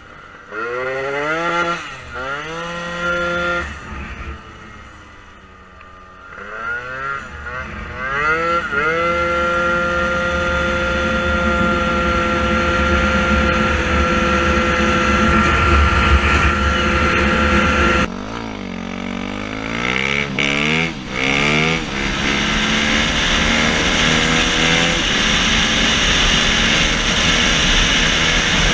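A small motorbike engine revving hard and pulling up through several gears, each shift dropping the pitch before it climbs again, then holding a steady high-revving note. About two-thirds of the way in it gives way to a different dirt bike engine that also accelerates up through the gears and then runs steadily at speed.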